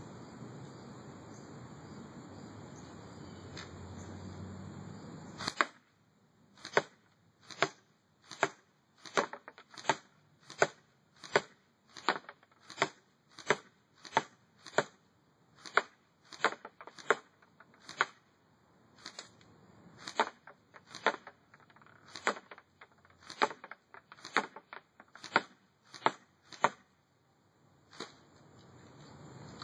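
Double Eagle Spetsnaz AK47 airsoft gun firing single shots, about thirty sharp clicks at roughly one every 0.7 seconds with a few short pauses, starting about five seconds in.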